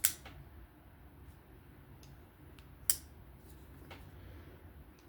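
Scattered sharp clicks and ticks of small tools and knife parts being handled while a long, tight pivot screw is driven into a pocket knife; two louder clicks come at the start and about three seconds in, with fainter ticks between.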